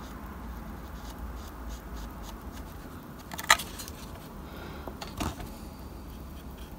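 Faint, scratchy strokes of a wide flat paintbrush working paint into embossed plastic brickwork, with a sharp tap about halfway through and a softer knock over a second later.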